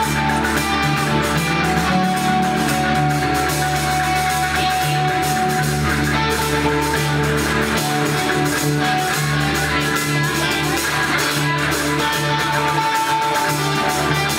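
Live band music with plucked strings over a steady percussive beat, dense and continuous.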